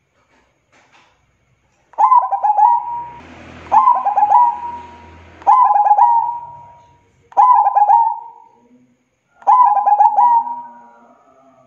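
Zebra dove (perkutut) cooing: five phrases about two seconds apart, starting about two seconds in. Each phrase is a quick stutter of notes running into a held coo.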